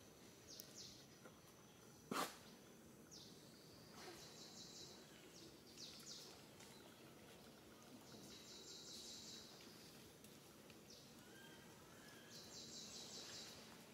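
Faint outdoor background with a high, rapidly pulsed trill that comes three times, each bout lasting about a second, and a single sharp click about two seconds in.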